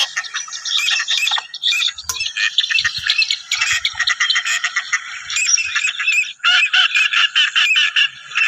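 A flock of waterfowl calling together: many short calls overlap in a dense, continuous chatter. The sound cuts off suddenly at the end.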